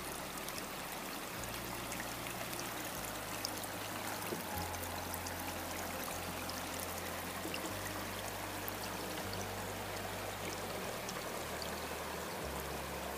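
Small waterfall: water spilling down through a beaver dam with a steady, noisy rush and trickle.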